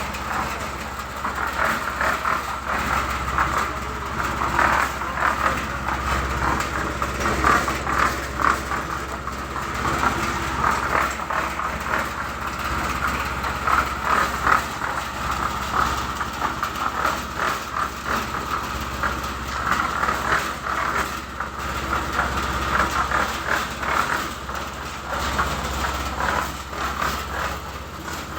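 Concrete-pouring machinery: an engine running steadily under a continual rattling clatter.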